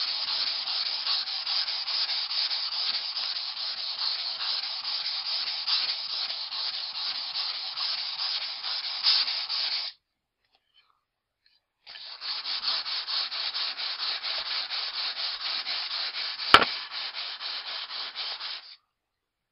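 Axe edge drawn back and forth over 400-grit wet-and-dry sandpaper on a foam mat: rapid, even rubbing strokes while the convex edge is refined with finer grit. The rubbing stops for about two seconds near the middle, then resumes, with a single sharp click partway through the second run.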